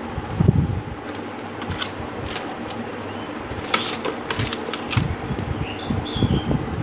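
Handling noise: plastic packaging rustling and crinkling, with dull bumps as a mixer grinder's motor base is picked up and turned over in the hands. There is a run of crackles in the middle and bumps about half a second in and again near the end.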